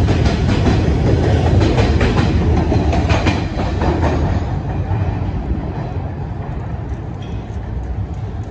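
MTA R160A subway train running out of the station, wheels clicking rhythmically over the rail joints under a heavy rumble. It fades steadily as it pulls away into the tunnel.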